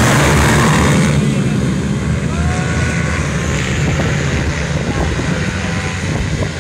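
Racing pit bikes' small single-cylinder engines at full throttle. A loud close pass fills the first second, then the engines drop to a more distant drone with a few faint rising notes as riders accelerate.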